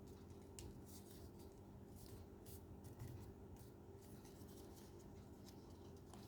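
Faint rustling and creasing of paper being folded by hand: soft, irregular scratchy strokes over a low steady hum.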